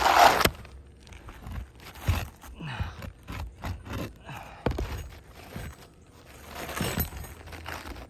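Scraping and cutting of an asphalt shingle being trimmed down by hand: a loud rasp in the first half second, then irregular scrapes and knocks, with a longer scrape near the end.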